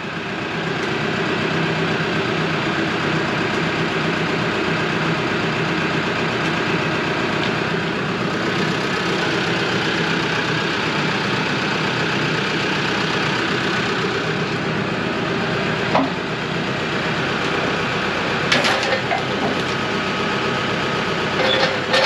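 Compact diesel tractor engine running steadily while its front-loader grapple sets a log onto the sawmill bed, with a few knocks and clanks in the second half.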